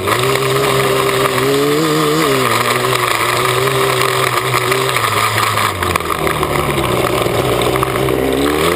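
Yamaha Banshee's twin-cylinder two-stroke engine running at a steady, moderate throttle close to the microphone, dropping a little in pitch about six seconds in and starting to rev up near the end, with wind noise over it.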